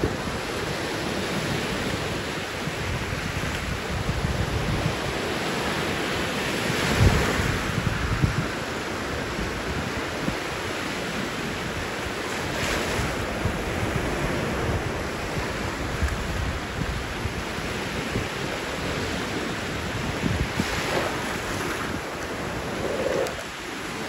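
Small waves on Lake Michigan breaking and washing up a sand beach: a steady surf hiss. Wind buffets the microphone in gusts, strongest about seven seconds in.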